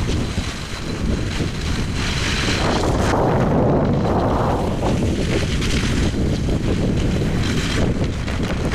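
Wind rushing over the camera microphone while skiing downhill at speed, with the hiss and scrape of skis on packed snow swelling with the turns.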